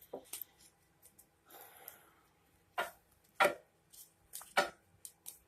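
Tarot cards being handled: scattered light taps and rustles, each short and separate, with a soft rustle about a second and a half in.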